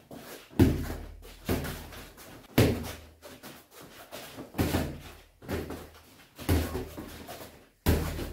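Padded boxing gloves landing punches in sparring: about seven sharp thuds at irregular intervals, each trailing off briefly.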